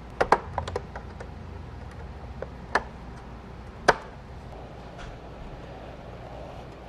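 Sharp plastic clicks and snaps as a screwdriver pries the retaining tabs of a chrome Chevrolet bowtie emblem loose from the back of a plastic truck grille. There is a quick run of clicks in the first second, then single snaps near 3 seconds and 4 seconds, the last one the loudest.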